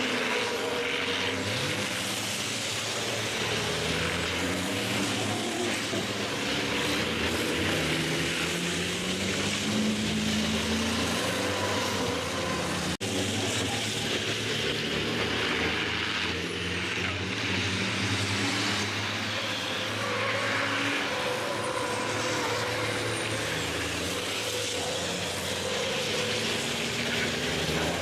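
Turbo-diesel race truck engines revving up and down as the trucks take a corner one after another and pass by, with the pitch repeatedly rising and falling.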